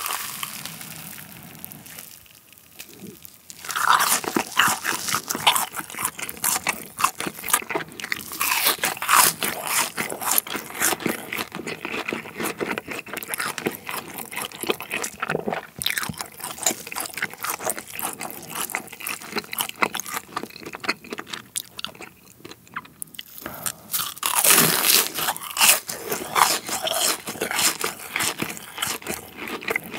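Close-miked crunching of deep-fried cheese balls being bitten and chewed, the crisp crust crackling with each chew. There is a short lull early on, and a loud burst of crunching a little after the middle where a fresh one is bitten into.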